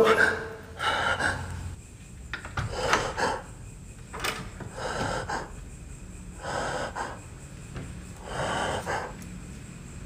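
A man breathing heavily, with audible breaths about every two seconds, and a single sharp click a little past four seconds in.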